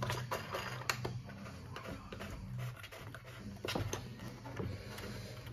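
Scattered light clicks and taps of the chainsaw's plastic air filter cover being fitted back on and handled.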